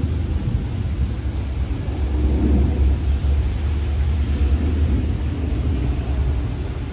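Rolling thunder over steady rain: a deep rumble that swells a couple of seconds in and slowly eases.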